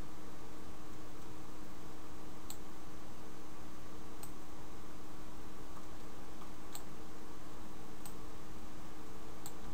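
Five sparse computer mouse clicks, one to two and a half seconds apart, over a steady hiss and a low hum.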